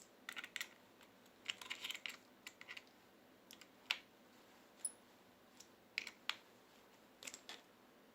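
Faint, irregular clicks and taps in small clusters, from a cordless hair clipper being handled during repair.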